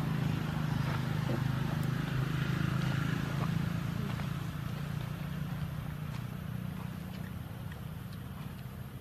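A motor vehicle's engine running with a steady low hum that slowly fades away over the second half, with a few faint clicks.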